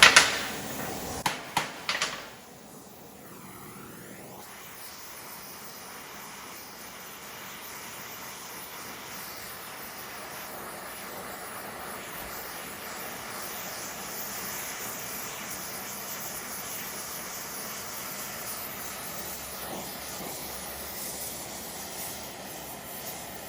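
Four or five hammer blows on hot steel in the first two seconds, then the steady roar of an oxyacetylene torch heating the metal, slowly getting a little louder.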